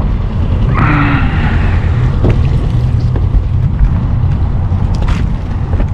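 Steady low rumble of wind buffeting the microphone, with a short hiss about a second in and a few faint clicks.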